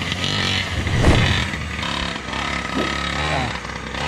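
Two-stroke gas engine of a 1/5 scale Primal RC Raminator monster truck running and revving up and down as it is driven. There is a loud low thump about a second in.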